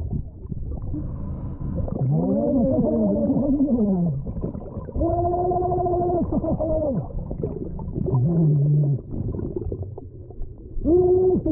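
Muffled sound picked up with the microphone underwater: a low rumbling wash with pitched moaning tones over it. Several tones arch up and down together, one tone is held steady for about two seconds, and a short low tone comes near the end.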